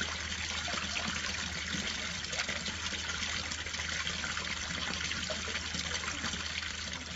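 Water from a small garden fountain spilling steadily over its rim and splashing into the basin below.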